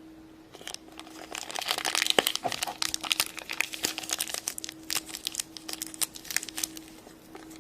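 Plastic packaging crinkling and crackling as a small toy surprise is unwrapped by hand, busiest a couple of seconds in and easing off near the end.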